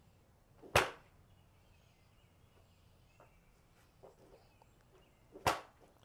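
A young child spitting: two short, sharp spitting bursts about five seconds apart.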